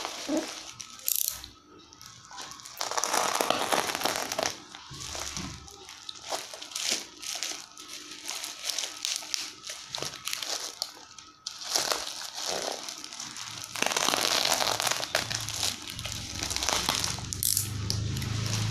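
Plastic courier bag and packing tape crinkling, rustling and tearing as a parcel is pulled open by hand, in irregular bursts.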